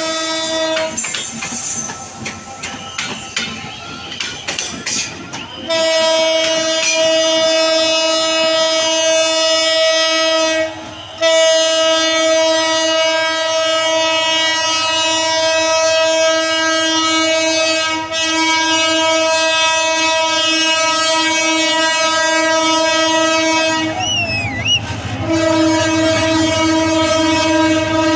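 Diesel locomotive horn blown in long, nearly unbroken blasts on one steady pitch as the train approaches and passes. It drops out for a few seconds near the start and breaks off briefly twice later. Wheels clatter over the rails underneath.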